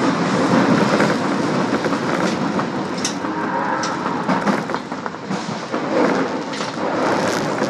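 Osaka Subway Tanimachi Line train running through a tunnel: a steady rumble of wheels on rail, with a few sharp clicks from the track.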